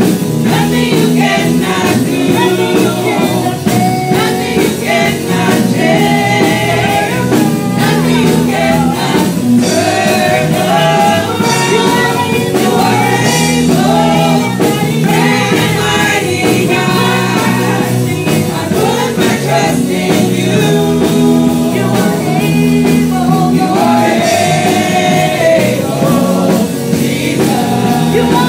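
Gospel praise-and-worship choir singing a worship song over instrumental backing, continuous throughout.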